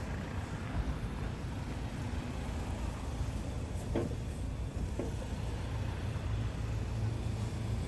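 Street traffic: a steady low engine rumble from road vehicles, with a few faint short knocks about four and five seconds in.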